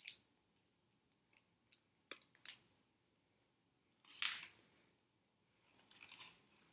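Near silence broken by faint scattered clicks and soft rustles as hands and clothing brush together during signing. There is a louder brushing rustle about four seconds in.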